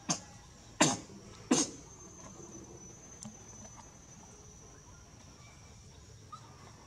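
Insects droning with a steady high-pitched tone, broken in the first two seconds by three loud, short, sharp sounds about three-quarters of a second apart.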